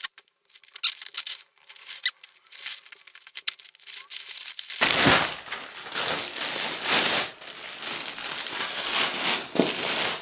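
Plastic packaging crinkling and rustling as a mailer bag is opened and clear plastic-wrapped items are pulled out and handled. It gets loud about five seconds in; before that there are only faint clicks and scratches.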